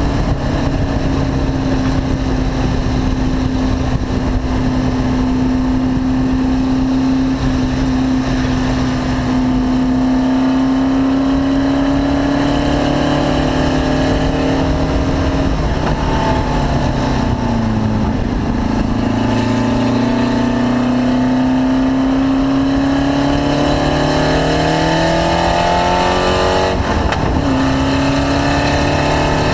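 Car engine under load on track, its pitch holding steady, sagging as it slows about halfway through, then climbing again with a quick drop near the end like a gear change. This is the engine the owner reports as misfiring.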